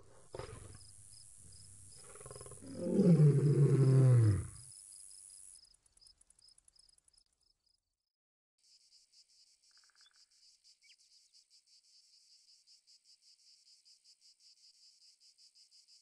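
Crickets chirping in a steady high pulse, with a loud, deep animal roar falling in pitch about three seconds in and lasting over a second. The chirping stops about six seconds in, and after a couple of seconds of near silence a quieter, faster chirping takes over.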